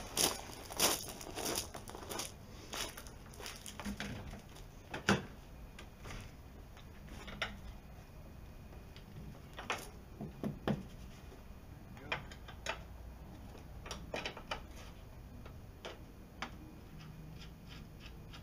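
Irregular light clicks and knocks of things being handled at the open rear hatch of a Jeep Cherokee XJ, coming quickly in the first few seconds and then more sparsely.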